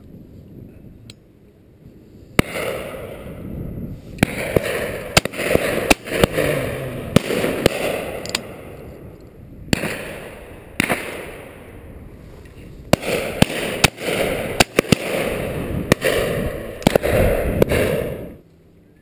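Close handling noise on a gun-mounted action camera: stretches of crackling, rustling scraping interrupted by many sharp clicks and pops, stopping abruptly near the end.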